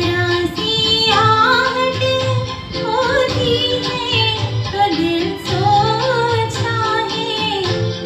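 A woman singing a Hindi film song, her melody gliding and ornamented, over backing music of sustained keyboard chords and a steady low beat.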